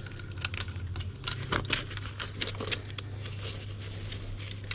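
Irregular light clicks, taps and rustling from hands working on small parts, over a steady low hum.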